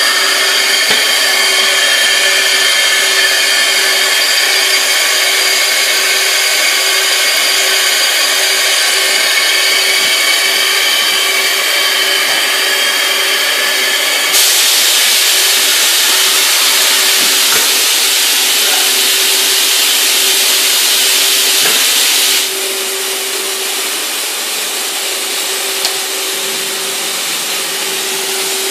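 Mazak VTC-41L CNC vertical machining center running with a steady multi-tone whine. About 14 s in a loud hiss joins it for about eight seconds, then stops and the machine runs on at a lower level.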